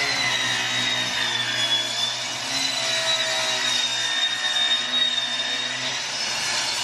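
Craftsman sliding miter saw running and cutting through a plywood sheet: a steady high motor whine over the rasp of the blade in the wood as it is drawn along the cut.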